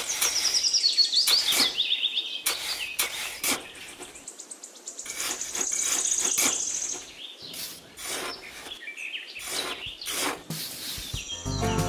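Birds chirping, with a falling run of chirps near the start and a fast high trill about halfway through, over a series of short scrapes from a small trowel digging into damp sand.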